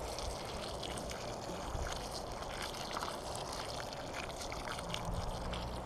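Water pouring steadily from a plastic watering can onto loose, freshly dug soil, trickling and splashing as it pools around the base of a newly planted sapling.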